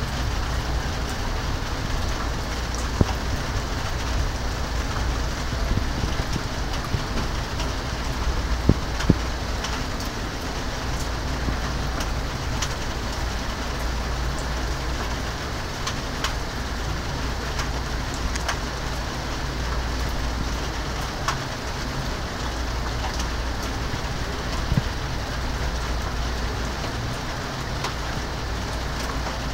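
Rain falling steadily in a thunderstorm, a dense even hiss with scattered sharp taps of drops striking close by.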